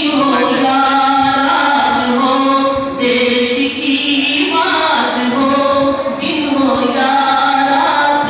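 Boys' voices singing a song together in unison, with long held notes.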